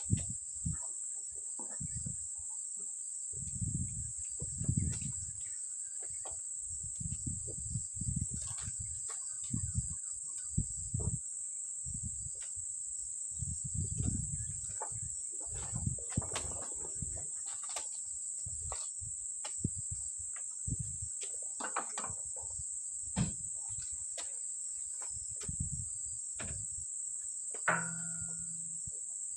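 Steady high-pitched insect drone, with irregular low thuds and short knocks as oil palm fruit bunches are pitched up onto a truck's load and handled with poles. One brief pitched sound near the end.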